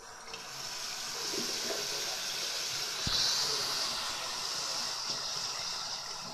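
Bathroom sink faucet turned on and running, a steady stream of water splashing into the basin and over hands held under it. There is a brief knock about three seconds in.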